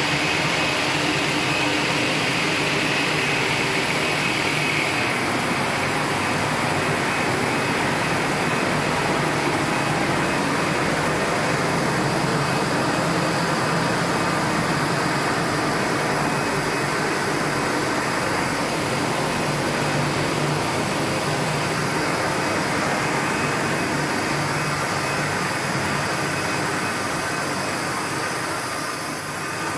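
Steady drone of popcorn production line machinery running: motors, fans and conveyor drives, with a high whine during the first five seconds or so.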